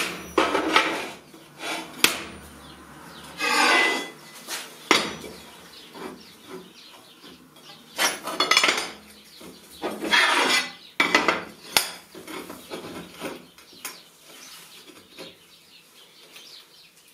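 Steel plates being set down, slid and knocked against each other on a steel welding table: irregular metallic clatter and scraping with a few sharp knocks.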